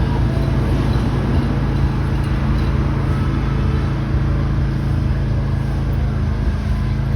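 A motor vehicle's engine running steadily, with road and traffic noise.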